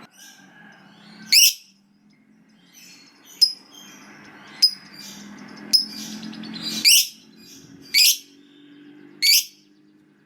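Lovebird giving about seven short, shrill calls, roughly one a second, some of them sweeping upward in pitch.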